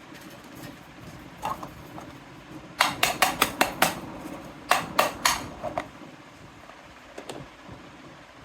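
Miniature toy kitchen dishes and utensils being handled, clinking and tapping against each other. A quick run of about six sharp clicks comes about three seconds in, about three more follow around five seconds, and a last single click comes near the end.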